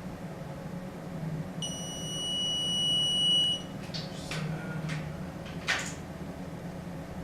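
A steady high-pitched electronic beep lasting about two seconds and growing louder, then a few short clicks or scrapes.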